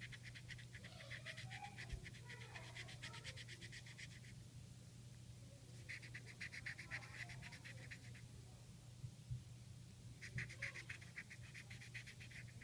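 Felt-tip marker scratching quickly back and forth on paper while colouring in, in three bouts of fast strokes with short pauses between.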